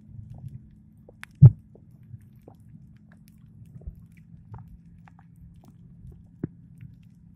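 Underwater sound through a submerged camera: a steady low hum with scattered small clicks and crackles, and one louder muffled knock about a second and a half in.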